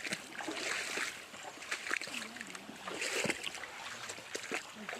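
Water splashing in irregular bursts as people wade through a river, with a short murmur of a voice about halfway through.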